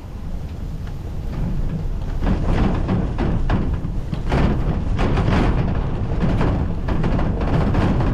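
Farm machine engine running under load with a heavy low rumble and irregular rattling and clunking, as it moves a chicken tractor across the field.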